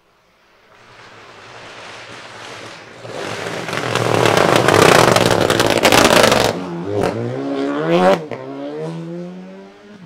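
Renault Clio rally car approaching flat out on a gravel stage and sliding through a corner, the engine at high revs under a loud hiss and clatter of gravel thrown by the tyres. It then accelerates away, engine pitch climbing, dropping at an upshift about eight seconds in, and climbing again.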